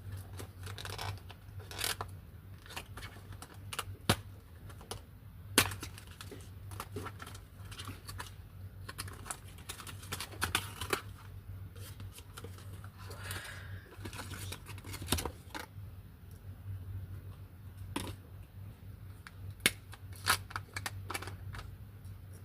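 Packaging being handled and opened by hand: rustling, crinkling and tearing, with scattered sharp clicks and knocks, a few of them loud.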